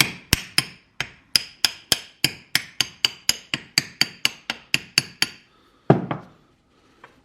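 Hammer giving light taps to start the drive-shaft flange onto the differential, about four evenly spaced strikes a second. The taps stop about five seconds in, followed by one harder knock.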